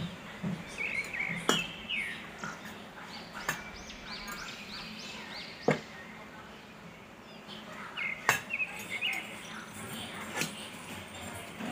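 Birds chirping throughout, with sharp clinks of a steel ladle against the pressure cooker and serving plate about every two seconds as rice is scooped out.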